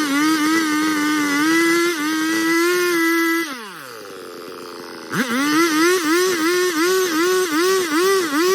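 A Stihl MS382 two-stroke chainsaw runs at full throttle, its pitch wavering as it cuts into wood. About three and a half seconds in it drops to idle. About a second and a half later it is revved back up and wavers again under load.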